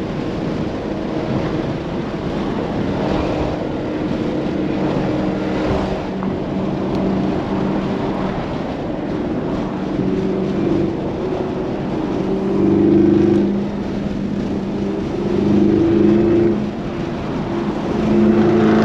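Chevrolet Camaro ZL1 1LE's supercharged V8 cruising at a steady pitch over constant road and tyre noise. The engine swells louder three times, near the middle, later on and at the very end, as the throttle is pressed.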